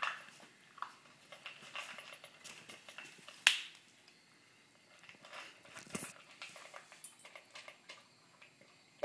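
Great Dane puppy eating dry kibble from a bowl: irregular crunching and clicks of kibble against the bowl, with one sharp, louder knock about three and a half seconds in.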